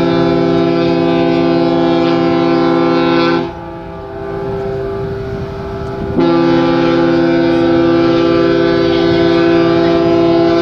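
Cruise ship's horn (AIDAcara) sounding two long, steady blasts: the first is already sounding and cuts off a few seconds in, and the second starts a little past the middle and holds to the end. The horn is loud.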